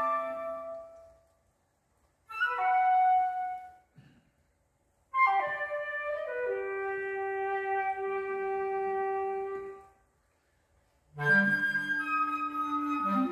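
Woodwind-and-cello chamber quartet of flute, oboe, clarinet and cello playing a slow contemporary piece. Held chords build note by note, each separated from the next by a pause of silence: a fading chord, a short phrase, a long chord that dies away, then a new chord with low notes near the end.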